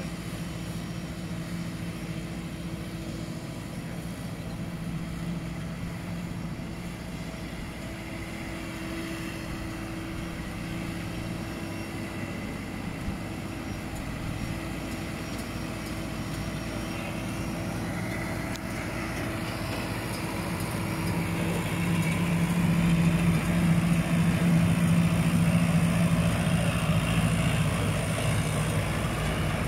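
Sonalika 90 tractor's diesel engine running steadily as it pulls a round baler through the straw, getting louder about two-thirds of the way through as it comes close.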